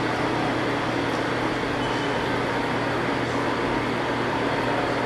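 Metal lathe running steadily while the cutting tool takes a facing cut across the end of a round metal billet, with an even mechanical hum throughout.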